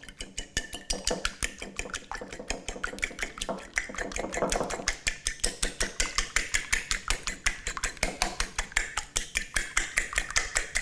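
A metal fork beating eggs and milk in a ceramic bowl, its tines clicking rapidly and evenly against the bowl at about six strokes a second.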